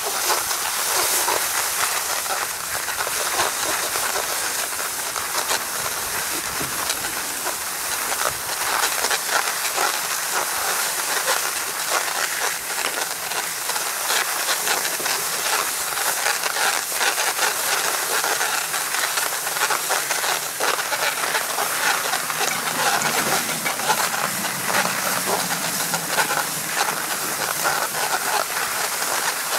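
Skis sliding over groomed corduroy snow: a steady scraping hiss with small crackles. A faint low hum comes in near the end.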